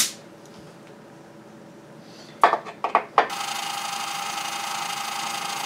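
A few short knocks and clicks of metal, then a metal lathe starts running about three seconds in: a steady machine whine with a constant tone over a hiss.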